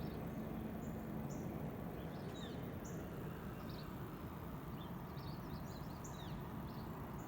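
Small birds chirping, with many short high calls, a couple of them sliding down in pitch, over steady low outdoor background noise.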